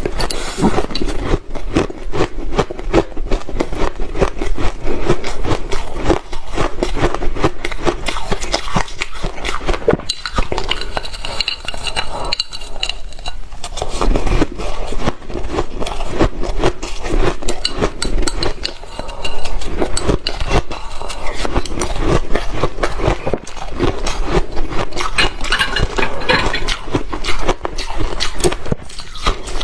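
Shaved ice being crunched and chewed, with chopsticks scraping and clinking against the ice; a dense run of crackling crunches.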